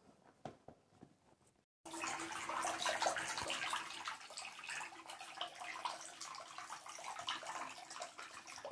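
Water running from a bath tap into a bathtub, a steady splashing rush with a faint steady hum under it. It starts about two seconds in, after a few soft footstep clicks.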